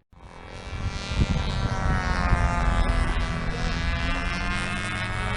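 A model airplane's small glow engine running steadily with a buzzing drone and a near-constant pitch that wavers slightly. It fades in over the first second or so.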